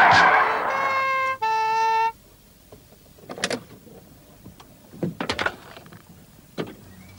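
Film-score music with held chords that stops abruptly about two seconds in, followed by a few sharp knocks and clicks.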